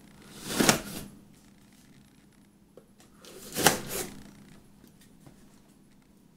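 A folding knife slitting the packing tape on a cardboard shipping box: two quick scratchy cuts, one near the start and one in the middle.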